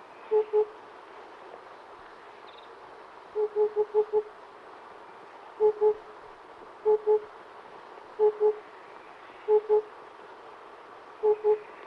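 Oriental cuckoo calling: low hoots in pairs, "po-po", repeated about every second and a half, with one run of four hoots about three and a half seconds in.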